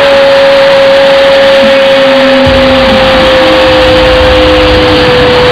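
A commentator's drawn-out goal cry, one long loud held shout, over a roaring stadium crowd, following a finish by Nasuti.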